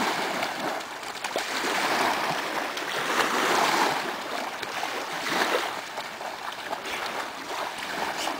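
Dogs splashing and wading through shallow lake water at the shoreline, with small waves washing over the pebbles. The splashing swells now and then.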